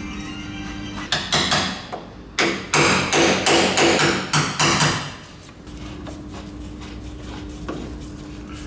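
A quick, uneven series of hand-hammer blows on sheet metal, about fifteen strikes over some four seconds with a short metallic ring, as a panel edge is tapped into place on the bus body.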